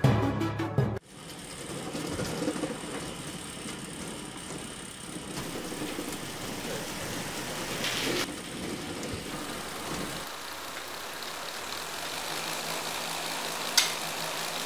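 Small electric motor of a homemade cardboard flour mill running steadily after being switched on, driving the grinding wheel through a rubber belt while it grinds grain into flour. Two sharp clicks come about eight and fourteen seconds in.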